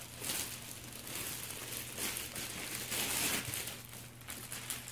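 Thin clear plastic bag crinkling and rustling as hands pull it off a large plush toy, a run of quick crackles that dies down near the end.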